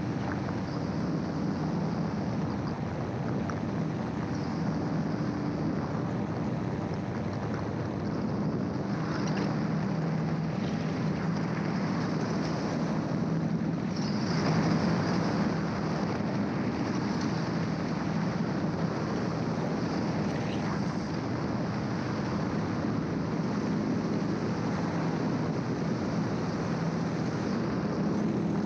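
Gyroplane in cruising flight: the steady drone of its engine, with wind rushing over the microphone. The sound swells slightly about halfway through.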